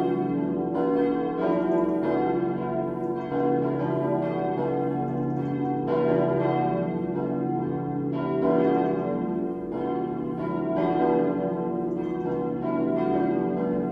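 Full peal of four cast-steel church bells from 1922, tuned B, D, E and F-sharp (h°, d', e', f♯'), swinging together, their strikes overlapping in continuous ringing. The poorly tuned set lets the deep B bell stand out, and the D bell's clapper strikes mostly on one side only.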